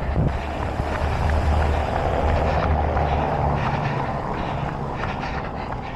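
A heavy road vehicle passing close by, with a low engine hum and tyre noise that swell and then fade away towards the end.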